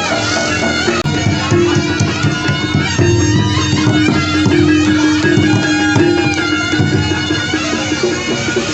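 Jaranan accompaniment music: a loud, reedy shawm (slompret) plays a sustained, stepping melody over drum strokes.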